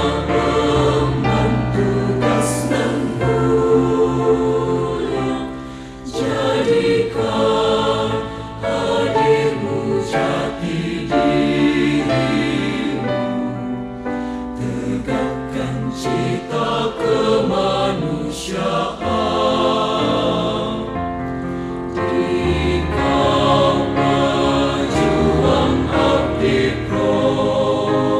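Background music: a song with choir singing over an instrumental backing.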